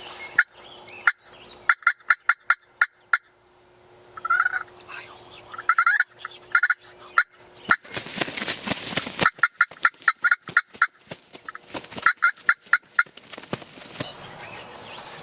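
Wild turkey toms gobbling in repeated rolling bouts, several gobbles following one another. About eight seconds in there is a short burst of rushing noise.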